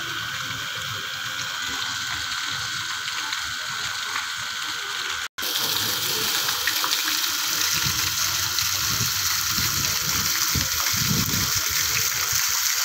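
Garden fountain jets splashing into a pool: a steady hiss of falling water, louder after a brief cut-out about five seconds in.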